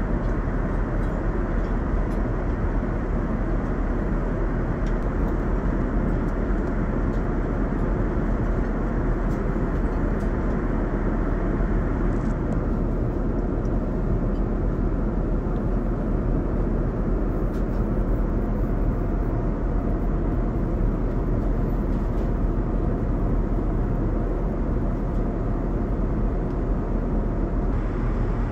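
Steady cabin roar of an airliner in cruise, a Starlux Airbus A350-1000: a low, even rumble of engine and airflow noise with no breaks.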